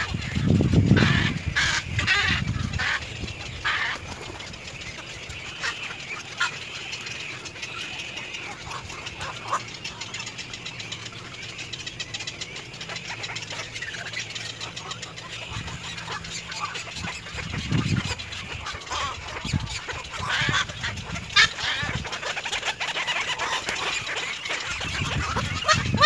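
Black-crowned night heron calls: short calls at irregular intervals, clustered near the start and again about twenty seconds in, with a few low bumps of handling noise.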